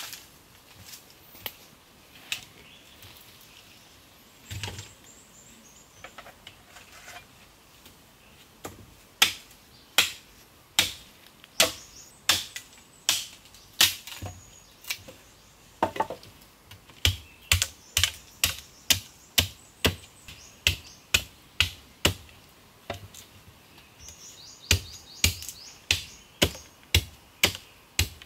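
Machete chopping a wooden stick to a point. Sharp chops come a few times at first, then regularly about a second apart, speeding up to about two a second. Faint bird chirps are heard twice.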